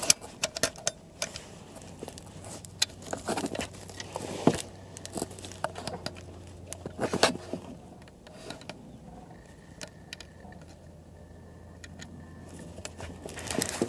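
Scattered clicks, taps and rustles of handling noise close to the microphone, with heavier clusters a few times, over a low steady hum.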